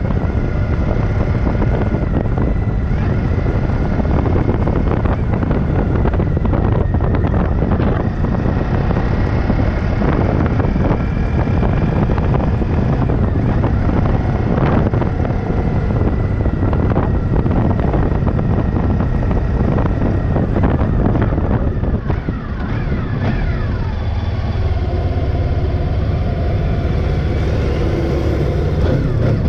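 Motorcycle engine running while riding, under heavy wind noise on the microphone. Near the end a Kenworth truck passes close by and its engine joins the sound.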